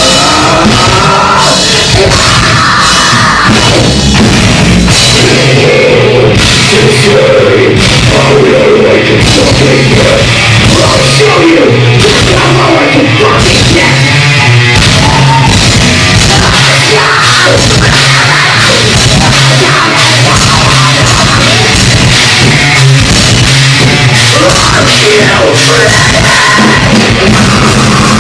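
Live metalcore band playing loud: distorted guitars, bass and a rapidly hit drum kit, with vocals.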